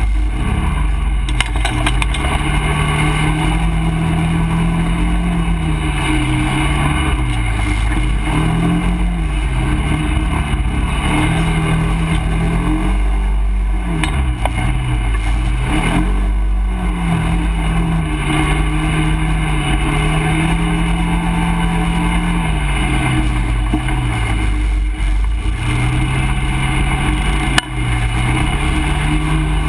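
ATV engine running under changing throttle while riding a muddy trail, its pitch rising and falling over and over as the rider gets on and off the gas, with a steady low rumble underneath. A single sharp knock near the end.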